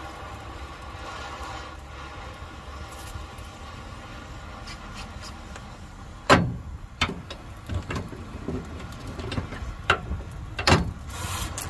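Oxy-acetylene torch flame hissing steadily on a rusted U-bolt nut. About six seconds in, a cordless impact wrench starts hammering in several short bursts, the first the loudest, breaking the heated nut loose.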